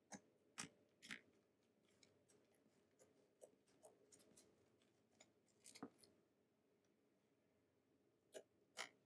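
Fingertips poking into a soft blob of glue slime, making a dozen or so soft clicks and small pops as they press in and pull free, with a short lull before two more near the end.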